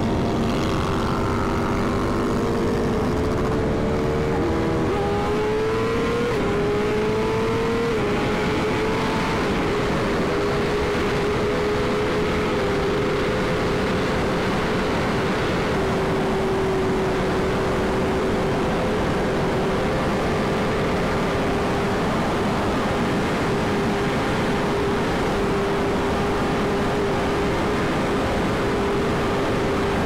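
BMW S1000RR's inline-four engine pulling hard, climbing in pitch with upshifts about six and eight seconds in, then holding a steady high-speed note. Heavy wind rush on the rider-mounted microphone.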